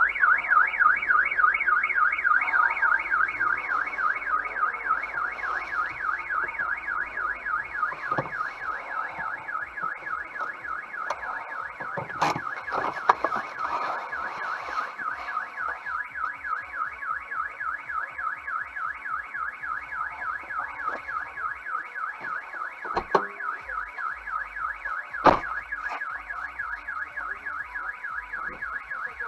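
Car alarm siren sounding with a fast, repeating warble that starts abruptly. A few sharp cracks stand out over it, the loudest about twelve and twenty-five seconds in.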